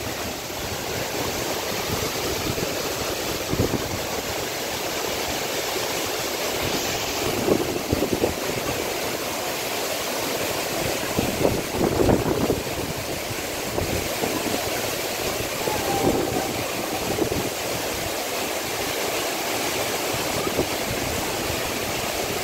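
Steady roar of a waterfall pouring onto rocks and the white-water stream rushing below it, with brief louder surges a few times.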